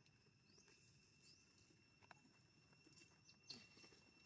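Very faint, short, high rising chirps from a small animal, over a steady high-pitched hum, with a few soft clicks; otherwise near silence.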